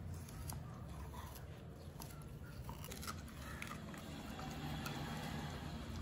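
Golden retriever chewing and biting into a stalk of purple sugarcane: faint, irregular crunches as its teeth tear the fibrous cane.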